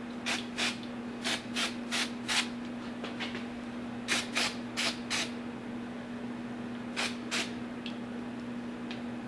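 Aerosol brake cleaner sprayed in about a dozen short hissing squirts, in quick groups of two to four, onto the injection pump shaft and its keyway. A steady low hum runs underneath.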